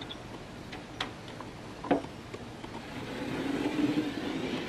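A few sharp clicks and knocks from a tape measure being handled on a wooden board, then a scratchy scraping that builds from about three seconds in as a line is drawn along the board at the tape's end.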